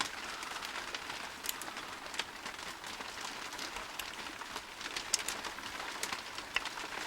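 Heavy rain hissing steadily, with a few small sharp ticks scattered through it.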